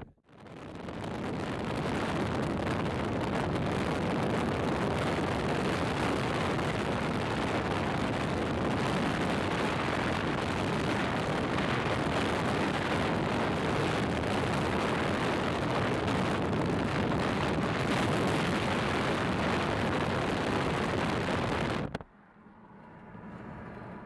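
Steady rushing road and wind noise inside a vehicle driving at speed. It rises over the first second or two and cuts off abruptly near the end.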